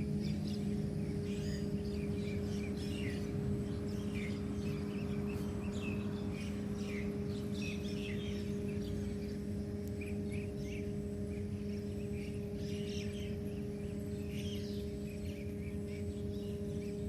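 Birds chirping with many short, scattered calls, over a steady low hum.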